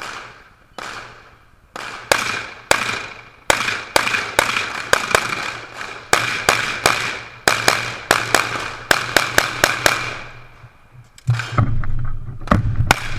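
Rapid string of 9mm pistol shots from a compensated Glock 17 Open-division race gun, many fired in quick pairs. Each shot rings out and decays across the range. Near the end a low rumble comes in under a few more cracks.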